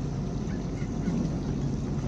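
Towboat's engine idling steadily, a constant low hum.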